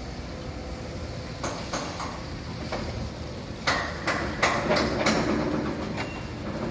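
Construction-site ambience: a steady low rumble with sharp metallic knocks, a few scattered at first, then about five loud ones in quick succession in the second half.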